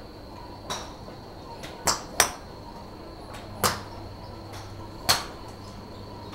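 Golf clubs striking balls at a driving range, heard as about five sharp cracks with a short ringing tail at irregular intervals; two come close together about two seconds in and are the loudest. They come from neighbouring bays, not from the golfer in view, who stands at address without swinging.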